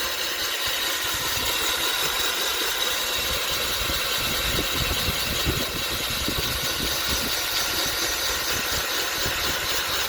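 Cordless drill spinning a 1.5-inch diamond coring bit, grinding steadily through water-cooled porcelain tile.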